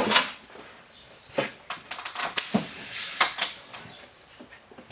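Clicks and knocks of tools and air fittings being handled, then about a second of compressed air hissing as the shop air supply to the air drill is turned on.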